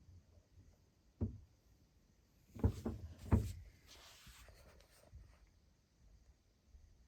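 Handling clunks and clicks on a cassette deck: one sharp knock about a second in, then a cluster of heavier clunks near three seconds, followed by a short rustling hiss.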